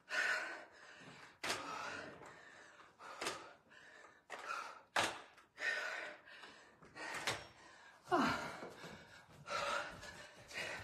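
A woman breathing hard under exertion: short, forceful gasps and exhalations, about one every second or so, keeping time with the reps of dumbbell sumo deadlift high pulls.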